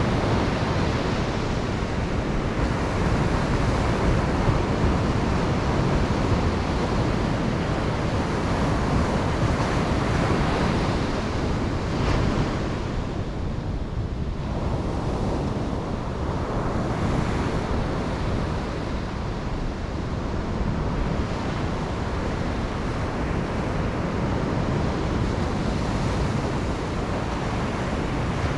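Ocean surf washing onto a beach, a steady roar of breaking waves that eases about halfway through and builds again, with some wind on the microphone.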